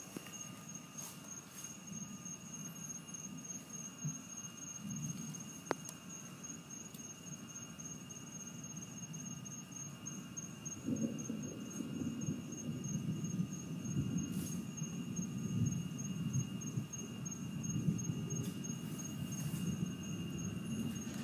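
Low rolling rumble of distant thunder that swells from about halfway through and keeps going, over a steady high trilling of night insects.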